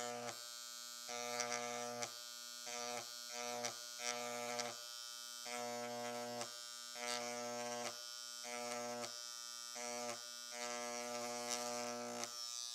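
Craftsman electric engraver (7,200 strokes per minute) buzzing steadily as its carbide tip is worked across soft aluminum to write letters. The buzz swells and drops back in short stretches, stroke by stroke.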